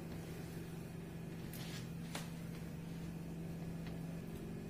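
Steady low room hum with a constant pitch, with a couple of faint light clicks a little under two seconds in.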